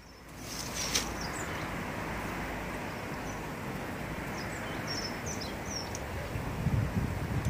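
Outdoor garden ambience: a steady background hiss with a few short, high bird chirps in the middle. A low rumble comes in near the end.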